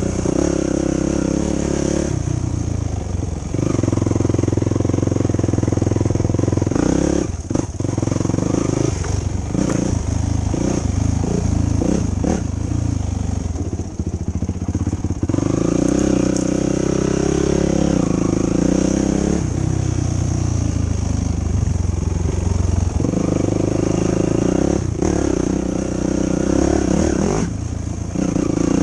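2005 Yamaha YFZ450 quad's single-cylinder four-stroke engine running hard, the revs rising and falling as the throttle is worked, with short dips off the throttle about seven, fourteen and twenty-seven seconds in.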